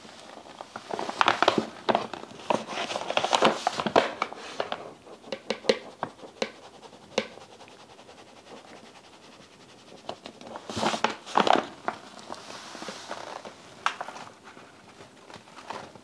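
Kitchen handling sounds while preparing bread: rapid clicking, tapping and rustling in two busy bursts, the first from about a second in for several seconds, the second shorter, about eleven seconds in.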